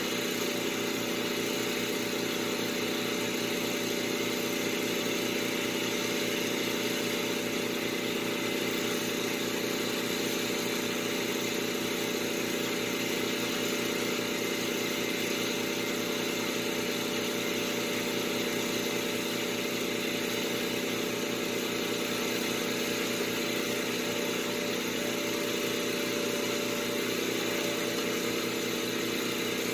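A motor-driven machine running steadily, a constant hum with no change in pitch or level.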